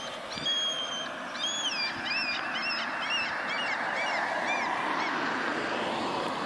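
A bird calling: a couple of held whistled notes, then a swooping note and a quick run of short rising-and-falling notes at about three a second that stops a little after the middle, over a steady background rush.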